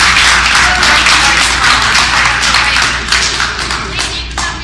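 A roomful of people applauding, the clapping dying down over the last second or so.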